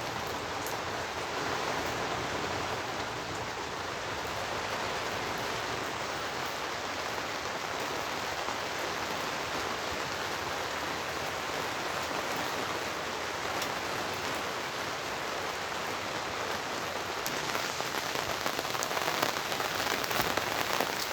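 Heavy rain falling steadily, with sharper individual drop hits growing more frequent near the end.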